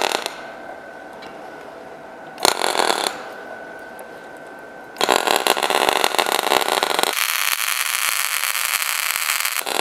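Gasless flux-cored MIG welding arc on 2 mm stainless steel sheet, torch at positive polarity, crackling and sizzling. A short burst comes about two and a half seconds in, then a continuous crackle from about five seconds on, over a faint steady whine.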